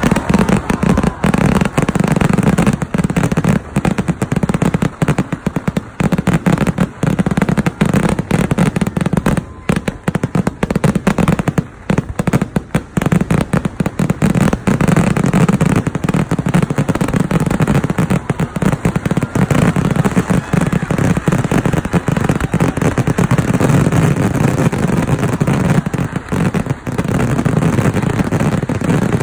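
Dense, continuous barrage of firecracker explosions from a large festival fireworks display, the bangs so rapid they overlap into one loud crackling rumble without a break.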